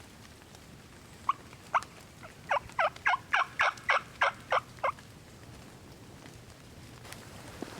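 A run of about eleven turkey yelps in hen style, each dropping in pitch: two spaced yelps, then nine in quick succession at about three a second. It stops after about five seconds.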